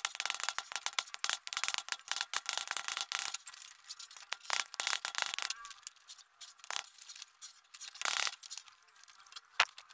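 Hammer striking a cut piece of steel pipe on a wooden block: a quick run of rapid taps for about three seconds, then a few separate single strikes spaced out to the end.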